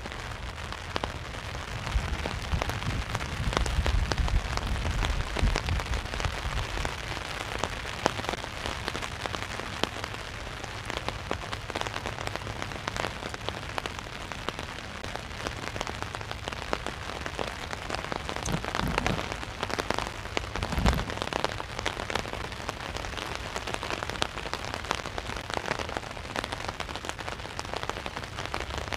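Heavy rain drumming steadily on an umbrella overhead, a dense patter of many fine drop ticks. A low rumble swells about two seconds in and fades a few seconds later, and two short low thumps come near the end.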